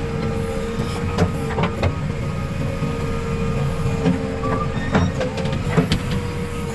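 JCB 3DX backhoe loader's diesel engine running steadily under work, with a steady whine over the low rumble and a few sharp metallic clanks scattered through.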